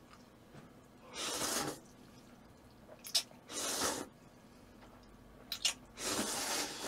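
Close-miked eating: wet mouth sounds and a few short clicks, with three soft hissing rushes, each under a second, about two and a half seconds apart.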